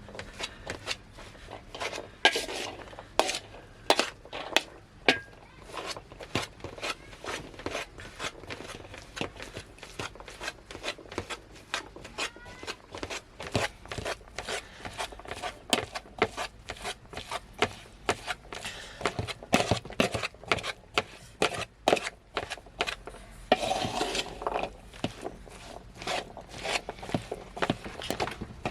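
Kitchen dishes and utensils clinking and knocking in quick, irregular taps, with a short burst of scraping or rubbing near the end.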